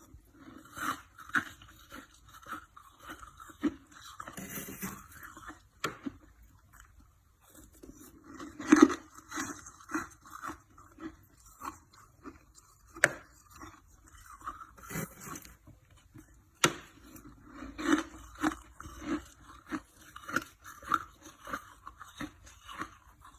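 Close-up crunching and chewing of freezer frost, with short irregular crunches and a few sharp clicks, mixed with some scraping.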